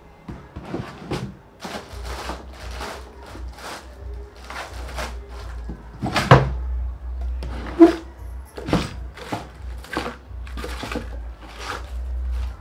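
Rummaging in a table drawer: the drawer pulled out and its contents knocked about, a string of short knocks and clatters with two louder bangs about six and eight seconds in, over a low steady hum.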